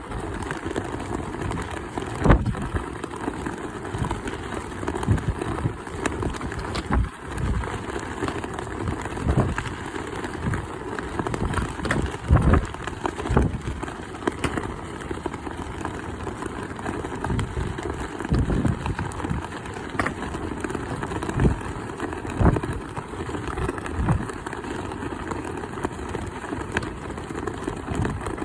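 Strong wind buffeting the microphone in gusts, with irregular sharp knocks scattered through it.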